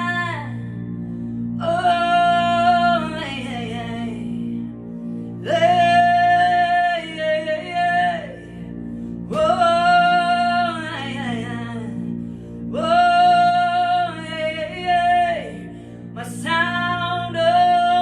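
A single voice singing five long held phrases in a chant-like song, each ending in a downward slide, over a steady low instrumental drone.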